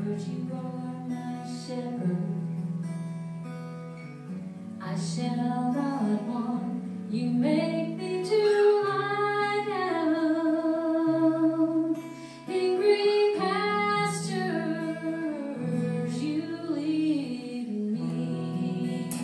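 Live band playing a slow worship song: strummed acoustic guitar, keyboard and drums with cymbal strokes, and a woman singing over them from about the middle.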